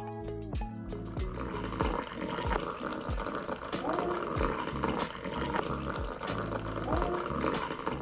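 Water running steadily, starting about a second in and cutting off sharply at the end, over faint background music.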